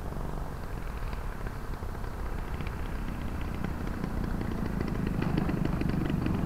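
Gas engine of a 40% scale RC aerobatic plane running, growing louder from about halfway through as the plane comes closer, with a fast rattling tick over the low rumble.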